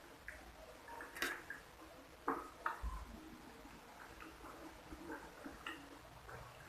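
Close-up eating sounds: a few sharp clicks and smacks, four of them standing out, over quiet room tone.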